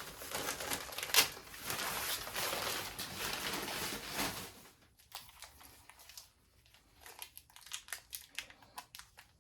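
Packing material rustling and crumpling as a shipped orchid is unwrapped by hand: a dense, busy rustle for about the first four seconds, then softer scattered crackles.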